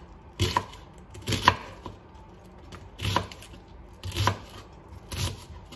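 A kitchen knife chopping a peeled onion on a cutting board: slow, separate cuts, about one a second, each a short crisp chop through the onion onto the board.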